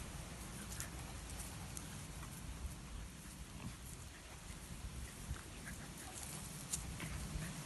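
Two small dogs play-fighting on grass, scuffling, with faint short vocal sounds from the dogs now and then.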